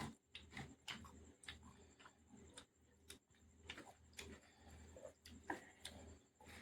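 Faint, irregular wet clicks and smacks of a person chewing, a few a second, over a low steady hum.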